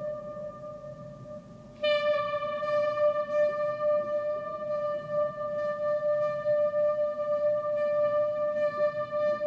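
Background music: a single long held note with rich overtones, which sounds again louder about two seconds in.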